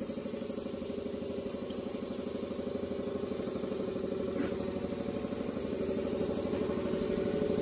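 Small engine idling steadily with a rapid, even pulse.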